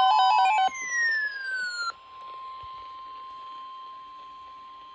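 Weather-radio alert signal ahead of a severe thunderstorm warning: a steady single-pitch alarm tone. For the first two seconds it sounds under a louder warbling tone and falling electronic sweeps, which break off abruptly. The steady tone then carries on alone, more quietly.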